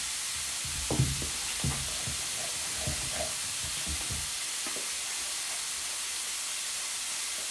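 Spoon stirring and scraping biscuit dough in a plastic mixing bowl, with a few soft knocks in the first half, over a steady hiss.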